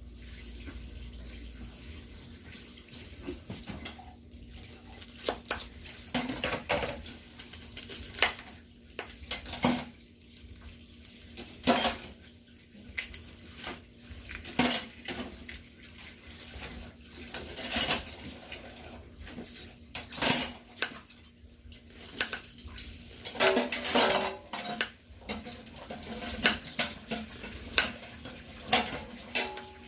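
Kitchen utensils and dishes clattering: irregular clinks and knocks of spoons, cups and dishes while chopped onion is measured out for a casserole, over a faint steady hum.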